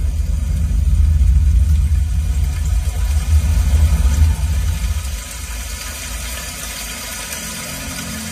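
Deep bass rumble from a film soundtrack played through a Tesla's cabin speakers, heavy for about five seconds and then easing to a lower level.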